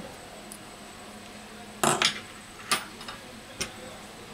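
Small hand tools and metal phone parts clicking as they are handled and set down during a smartphone teardown: a sharp double click about two seconds in, then two lighter clicks.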